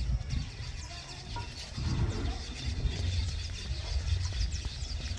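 Weaver birds chattering: many quick, high chirps overlapping throughout, over a steady low rumble.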